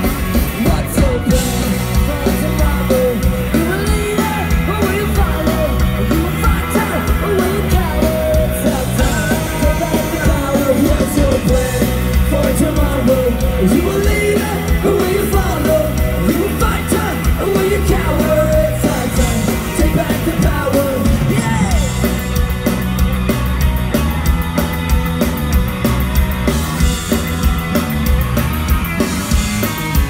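Live ska-punk band playing loud through the house sound system: electric guitars, bass and drums with singing.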